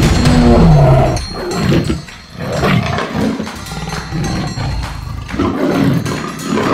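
Animal roar and growl sound effects: a loud roar falling in pitch over the first second, then a rougher, noisier growl that goes on after a short dip about two seconds in.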